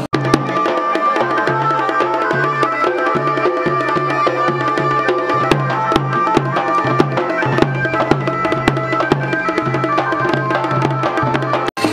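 Music with a busy drum beat under a steady melody line. It cuts out for a split second just after the start and again near the end.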